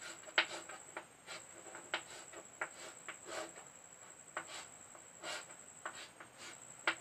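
Short, irregular strokes of handwriting, about one or two a second, as a ring structure is drawn.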